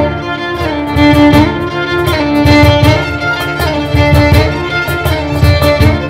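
Live string ensemble of violins, viola and cello playing an arrangement of a Persian traditional melody, with a cajon beating a driving rhythm of sharp slaps and deep bass thumps underneath.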